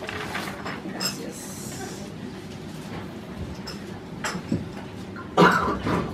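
Quiet room sound of a small live venue: faint voices and small scattered knocks, with one short, loud burst of noise about five seconds in.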